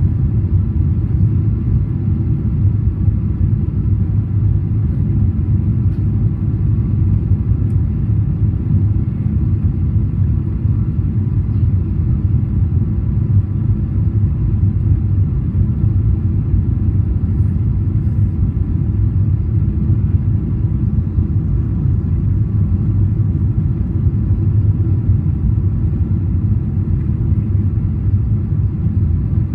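Steady low rumble of cabin noise inside a Boeing 777-300ER on final approach with flaps extended: its GE90 engines and the airflow, heard from a window seat beside the wing. Faint steady tones sit above the rumble.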